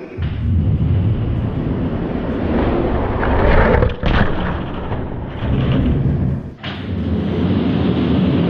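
Die-cast toy monster trucks rolling down a track, a continuous low rumble that drops out abruptly for a moment about 4 seconds in and again about 6.5 seconds in.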